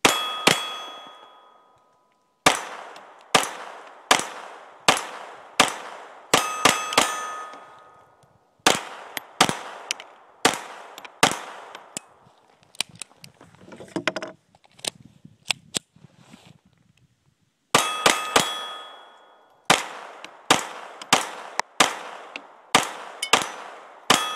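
A 1911 pistol with a .22 LR conversion kit firing strings of shots, some spaced and some in quick runs. Several shots are followed by the ringing clang of a hit steel target. The firing stops for about five seconds midway, then resumes and quickens near the end.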